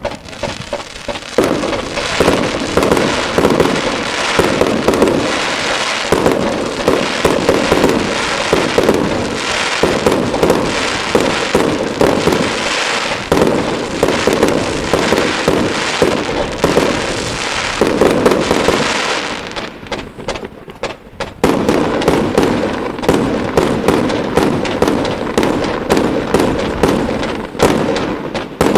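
Fireworks going off in a dense, rapid barrage of bursts and crackling. The barrage slackens for a moment about two-thirds of the way through, then picks up again just as thickly.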